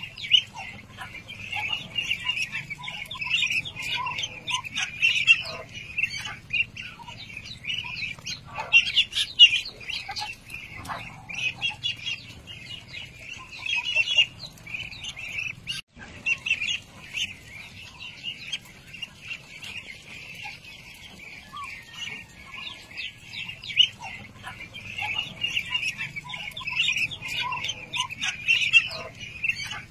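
A cageful of young white Muscovy ducklings peeping continuously, many short high calls overlapping, over a faint low steady hum.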